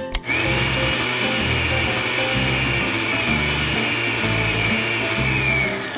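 A miniature electric hand mixer running steadily with a high whine as it beats red cream in a small bowl. It starts just after the beginning and stops shortly before the end, over background music.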